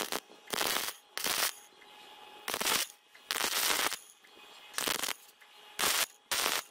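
MIG (wire-feed) welder arc crackling in short bursts as tack welds are laid on a steel suspension arm. There are about eight bursts, each under a second, with quiet gaps between them.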